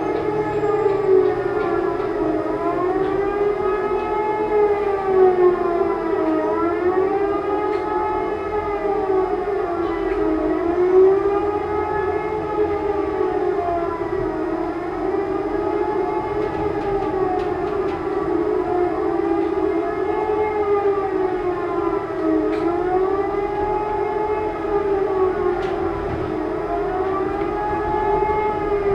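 E57 electromechanical civil-defence siren wailing, its pitch rising and falling about every four seconds. This wavering tone is the public warning signal, sounded here as a test alarm.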